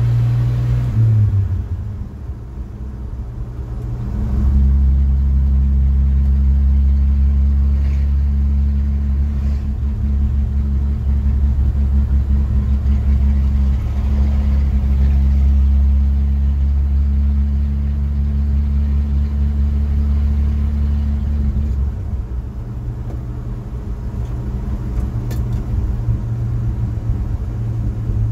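1969 Chevrolet C10 pickup's engine and drivetrain heard from inside the cab while driving: a steady low drone that dips about two seconds in, comes back stronger about four seconds in, holds steady, and eases off again after about twenty-two seconds.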